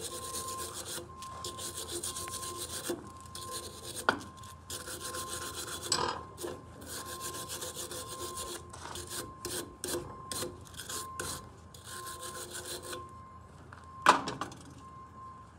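Hand wire brush scrubbing the threads of a steel bolt clamped in a vise in fast back-and-forth strokes, clearing the coating baked in by the torch cut. The scrubbing stops shortly before the end, with a few sharp knocks along the way and a louder one near the end.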